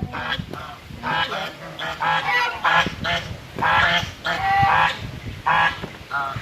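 Geese honking again and again, about a dozen short harsh calls in quick succession, as geese fight among themselves.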